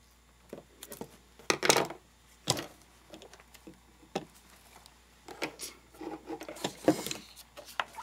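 Paper and craft supplies being handled on a tabletop: irregular taps, knocks and paper rustling, loudest a couple of seconds in and again near the end.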